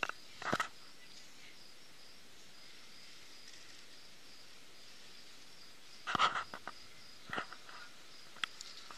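Graphite pencil scratching on paper in a few short strokes, a small cluster of them about six seconds in, over a steady faint hiss.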